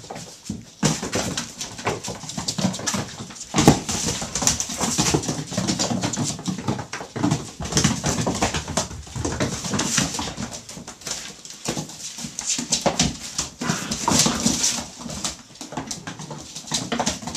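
A litter of six-week-old puppies playing and tussling, whimpering and yelping over a steady busy scuffle of many short clicks and knocks.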